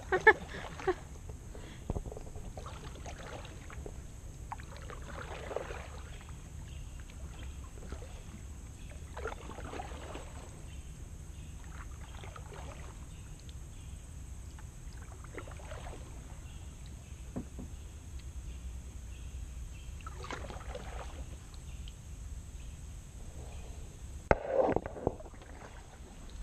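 Kayak paddle strokes dipping and swishing in the water every few seconds, over a steady low rumble. There are a few sharp knocks near the start, and the loudest stroke and splash come near the end.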